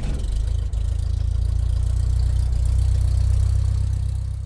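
A car engine idling steadily, a deep, even running sound that cuts off suddenly near the end.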